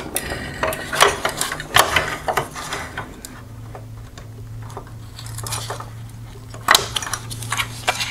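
Hard plastic parts of an LED headlight assembly clicking and knocking as a chrome-plated plastic reflector is worked loose from the headlight housing and handled: a run of quick sharp clicks, fewer in the middle, and a couple more knocks near the end. A low steady hum comes in about three seconds in.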